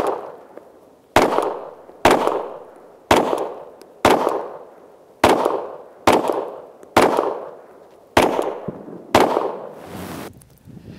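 Glock 34 9mm pistol fired in slow, steady succession: nine shots at about one a second, each with a trailing echo.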